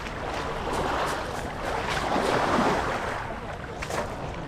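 Small sea waves washing in on the shore, the hiss swelling and falling back every second or two, with a few scattered clicks.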